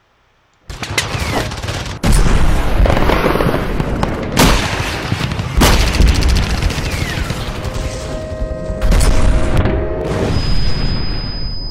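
Cinematic war-themed intro soundtrack: gunfire and booming impacts over music. It starts suddenly under a second in, with heavy hits about four and a half, five and a half and nine seconds in, a rising sweep around eight seconds in, and a high steady tone near the end.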